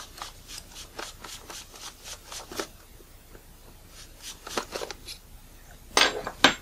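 Metal lens spanner wrench turning the front-element retaining ring of a Nikon Nikkor 24-85mm VR lens: a quick run of small clicks and scrapes, about five a second, that thins out after about three seconds. Two sharp knocks near the end.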